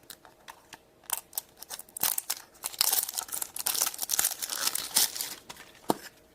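A small plastic blind-bag wrapper being torn open and crinkled by hand: a few sharp crackles, then about three seconds of steady crinkling that stops near the end, followed by a single click.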